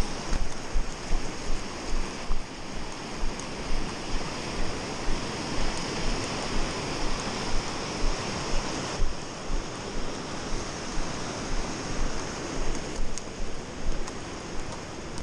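Rushing rapids of a creek in high flow, a steady rush of water. Low thuds come about twice a second, footsteps on the wet rock ledge.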